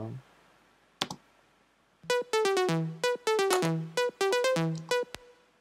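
Self-made synth pluck preset playing back a short rhythmic phrase of bright plucked notes, about three seconds long, starting about two seconds in, with a lower note sounding under some of them.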